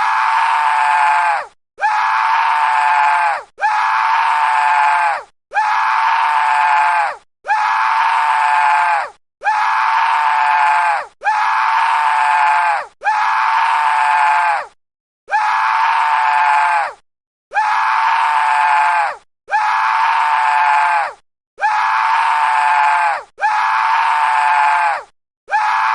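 A man's anguished scream, a dying-scream sound effect, repeated over and over as a loop of the same take. There are about fourteen loud cries of about a second and a half each, each dropping in pitch as it ends, with short silent gaps between them.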